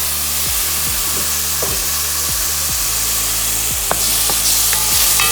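Onions, sweet peppers and garlic sizzling in hot oil in a pot while being stirred, a steady frying hiss. A couple of sharp clicks come about four seconds in and near the end.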